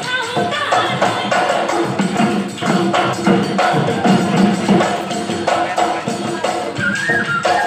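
Live Bihu folk music: several dhol barrel drums beating a fast, driving rhythm with clattering hand percussion over it and a steady held note.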